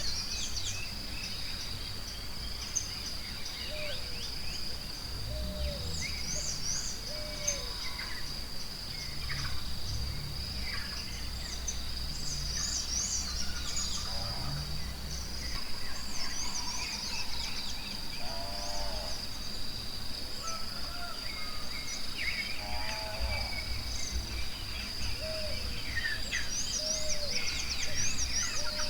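Forest ambience: many birds chirping and trilling over a steady high-pitched insect drone, with low sounds now and then.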